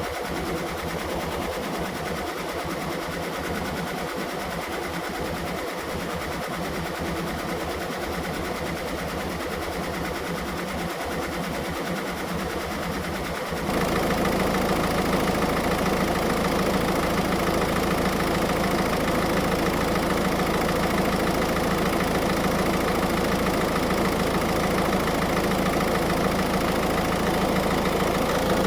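Car engine idling steadily; about halfway through the sound steps up and becomes louder and fuller in the low end.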